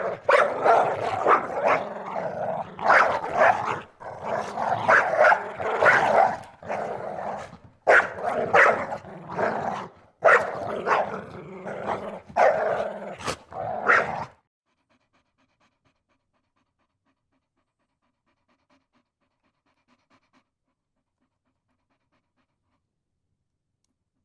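A dog barking and growling in rapid, dense bursts, which cut off suddenly a little past halfway, leaving near silence.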